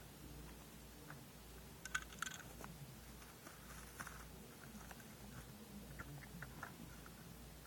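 Faint scattered clicks and crackles, with two sharper clicks about two seconds in, over a low steady hum.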